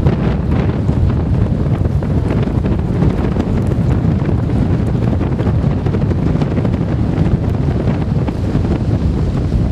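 Storm wind gusting hard against a mobile phone's microphone: a loud, steady low rumble of buffeting with a hiss of wind above it.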